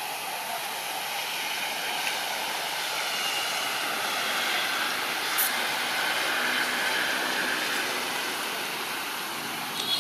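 Steady outdoor background hiss with no clear source, with a single click about halfway through and a short high chirp right at the end.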